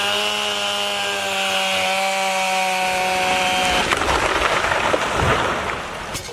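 Chainsaw engine running at a steady high pitch, then the saw's note breaks up into a loud rough rasp about four seconds in as the chain bites into wood.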